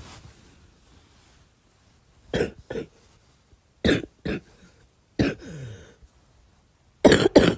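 A girl coughing in short fits: two coughs, then two more, a single cough trailing off in a falling voiced tail, and near the end the loudest run of three quick coughs.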